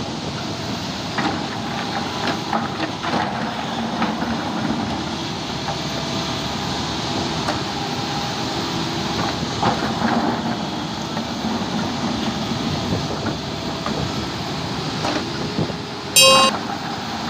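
JCB JS140 tracked excavator's diesel engine running steadily, with scattered knocks and clatter of rock against the steel bucket as it works a pile of broken stone. Near the end a short electronic chime sounds, the loudest thing here.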